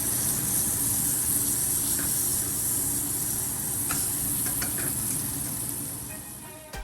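Butter sizzling in a hot pot: a steady frying sizzle with a couple of faint utensil taps, fading near the end.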